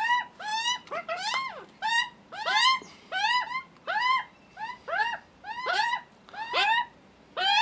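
Juvenile Australian magpies screaming their hungry begging calls, loud, harsh and repeated about two to three times a second. Each call rises and then falls in pitch, and calls from more than one bird overlap.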